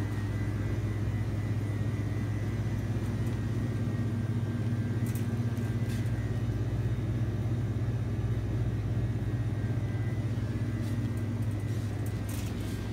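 A steady low hum that holds level throughout, with a few faint clicks over it.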